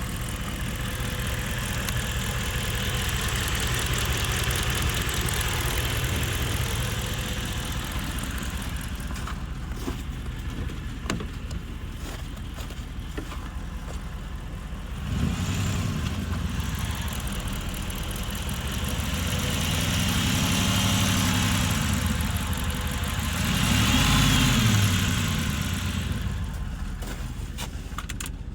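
Hemi V8 engine running with a tick that the owner fears is lifter tick. It idles steadily, then is revved up and let back down a couple of times in the second half.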